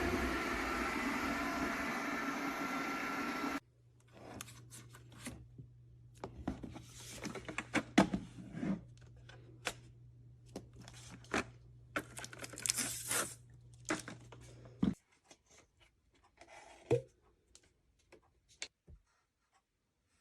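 Robot vacuum running steadily with a whine of several tones, which cuts off abruptly about three and a half seconds in. Then come scattered clicks, rustling and scraping over a faint low hum that stops about fifteen seconds in, and a few last clicks.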